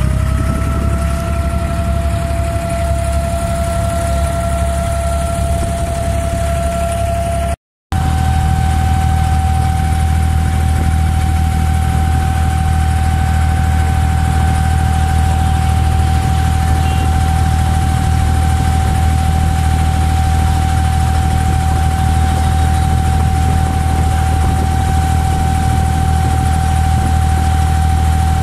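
Abra (wooden water taxi) engine running steadily under way: a loud low drone with a thin steady whine above it. The sound drops out completely for a moment about 8 s in.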